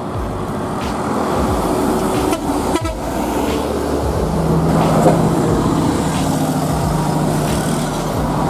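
Mercedes-Benz coach bus driving past, its diesel engine loudest as it goes by about five seconds in, then a steady engine drone as it pulls away.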